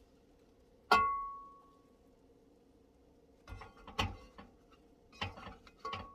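Metal utensils clinking and clattering against a pan while cooking: one sharp strike about a second in that rings on briefly, then a few short bursts of clatter in the second half.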